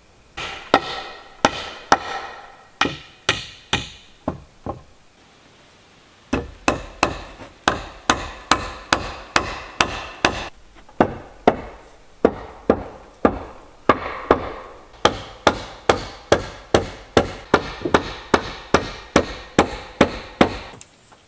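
Hammer driving nails into wooden boards of a log cabin: steady ringing strikes about two a second, with a short pause about five seconds in before the hammering resumes.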